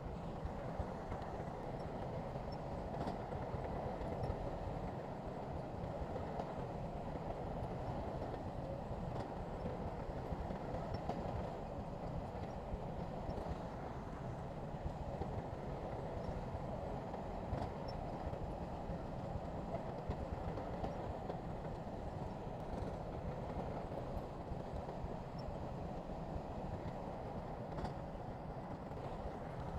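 Heavy diesel earthmoving machinery running steadily, with a low, even engine drone and a few faint clicks.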